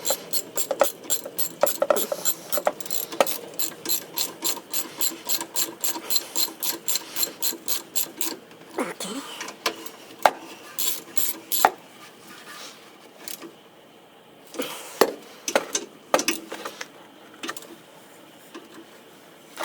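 Hand ratchet wrench clicking in quick, even strokes, about three to four clicks a second. The clicking stops about eight seconds in, followed by scattered single clicks and light metal knocks.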